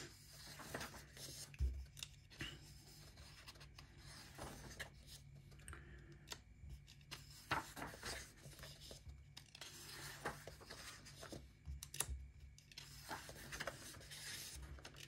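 Faint paper rustles as the pages of a colouring book are turned by hand, with short soft swishes every few seconds.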